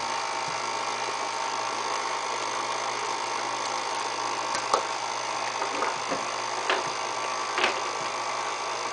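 KitchenAid Artisan stand mixer running steadily at low speed, its flat beater mixing creamed butter, sugar and eggs in the steel bowl, with a few short clicks.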